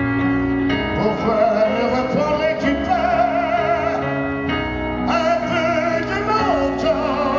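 Live male vocal singing long, wavering held notes with no clear words, over sustained keyboard chords. The voice comes in about a second in, breaks off briefly past the middle, and comes back for another held phrase.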